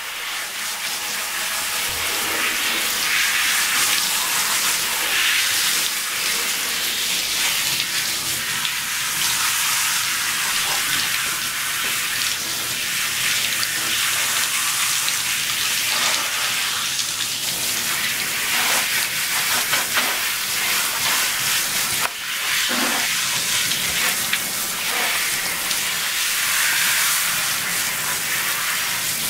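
Water spraying steadily from a handheld shower head onto a chihuahua and the bathtub, a continuous hiss that drops off briefly about three quarters of the way through.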